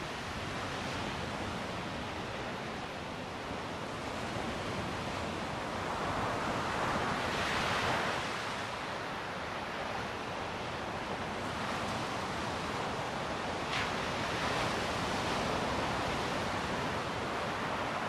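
Ocean waves breaking and washing on a sandy beach: a continuous surf rush that swells as waves break, at about seven to eight seconds in and again at around fourteen to sixteen seconds, with a little wind on the microphone.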